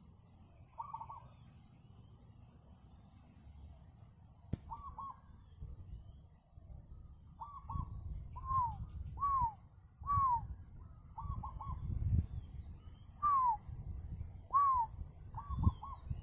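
Zebra dove (perkutut) cooing in an odd-sounding song. Quick stuttered groups of two or three notes alternate with single falling slurred notes, sparse at first and then coming every second or so over a low rumble.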